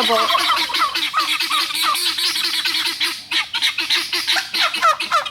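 A flock of penned guinea fowl calling together: a dense, harsh, overlapping chorus of short repeated cries, several a second, that the keeper calls a horrible noise, made as they want out of the pen.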